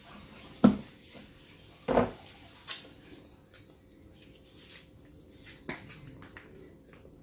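Sharp knocks and clicks of tableware and food being handled at a table. A loud tap comes about two-thirds of a second in, two more follow within the next two seconds, and then a scatter of softer small clicks.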